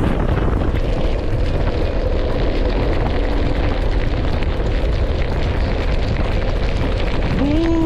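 Wind buffeting the microphone on a moving motorcycle, a loud steady rumble with the bike's engine and road noise underneath. Just before the end a pitched tone starts, stepping in pitch.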